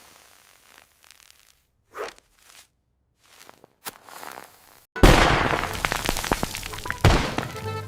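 Cartoon sound effects: a few faint light scuffs and taps, then about five seconds in a sudden loud crash that dies away in clattering, with a second hit about two seconds later.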